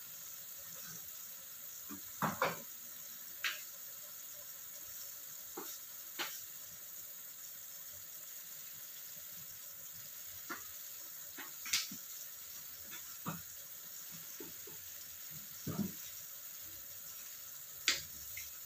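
Chicken feet and eggs simmering in a sauce in a nonstick wok on a gas burner: a faint steady hiss with scattered single pops from bursting bubbles, every second or two.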